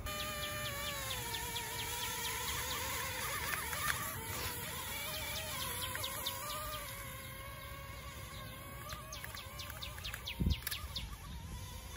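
Small toy quadcopter drone's motors and propellers buzzing, the pitch wavering up and down, with a single thump near the end.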